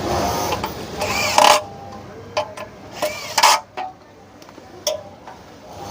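A few sharp metal knocks and clinks, some ringing briefly, as parts of a Pegasus industrial sewing machine are handled and fitted. Before them, for the first second and a half, a steady background noise.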